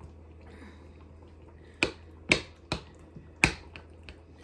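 Metal utensil clinking against the side of a bowl about five times, in the second half, while shredded pork is stirred into barbecue sauce.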